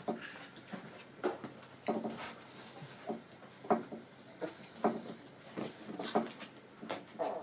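Four-and-a-half-week-old Schnauzer puppies play-fighting, giving a string of short, high puppy cries and yelps, roughly one or two a second.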